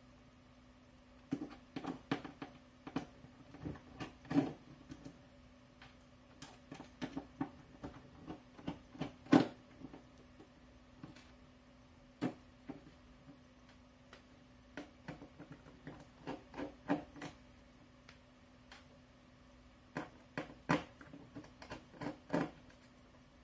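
A small screwdriver backing screws out of an HP ProBook 6570b's plastic screen bezel: irregular light clicks and taps of the tool and screws against the laptop, with one louder knock about 9 seconds in. A faint steady low hum runs beneath.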